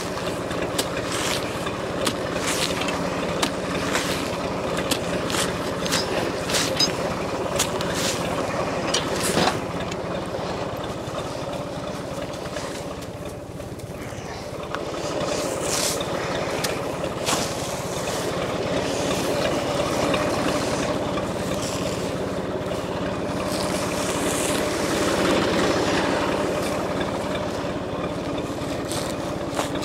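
John Deere 820 three-cylinder diesel tractor idling steadily, with intermittent scraping and crackling of frozen hay being raked and pulled apart.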